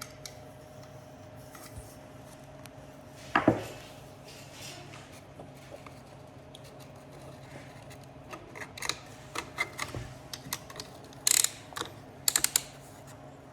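Hand tools and metal engine parts clicking and clanking during reassembly of a Kawasaki FD620D V-twin engine, with one louder knock a few seconds in and quick runs of sharp clicks near the end, over a faint steady hum.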